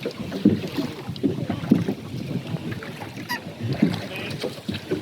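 Small rowed boat moving along a river: irregular water and oar noises.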